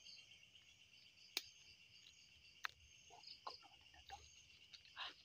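Steady high-pitched chirring of night insects in the forest undergrowth. Two sharp clicks stand out, the first about a second and a half in and the second a little over a second later, with a few softer taps near the end.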